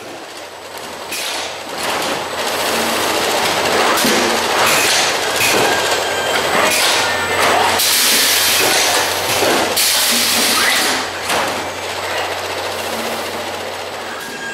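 Automatic bottle trolley packer running: a steady motor hum under continuous metallic clattering, with short bursts of air hiss about eight and ten seconds in.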